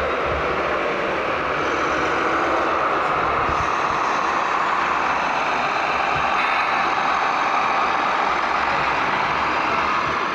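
Radio-controlled scale Komatsu HD 405 dump truck running, a steady engine-like vehicle noise with no breaks.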